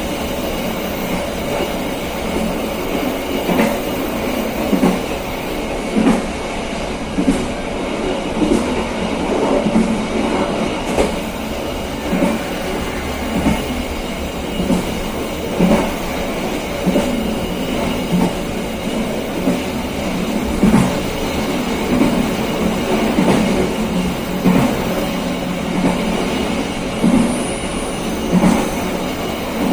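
KA Serayu passenger train carriage running along the rails, a steady rumble broken by sharp clacks of the wheels over rail joints about once a second.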